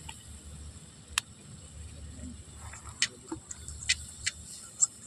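Several sharp clicks of a utensil knocking against a steaming wok as food is stirred, over a faint steady low rumble from the lit camping gas stove.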